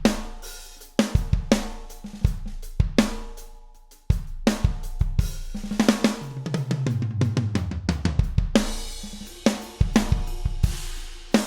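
Sampled acoustic drum kit from a Pearl Mimic Pro electronic drum module, played from electronic pads: a groove of kick, snare and hi-hat, a brief pause about four seconds in, then a tom fill falling in pitch down the toms, landing on a crash cymbal.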